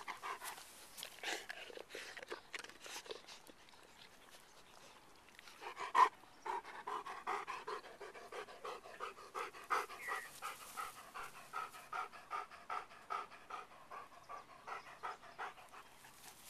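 Weimaraner panting hard with its mouth open, in quick, even breaths about two to three a second, steadiest from about six seconds in. A single sharp click comes just as the steady panting starts.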